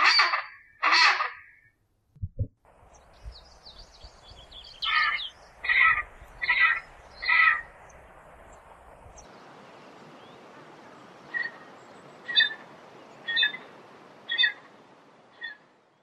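Blue eared pheasant calling: two loud calls at the start, a run of four calls about five to seven seconds in, then a series of five shorter calls about a second apart near the end.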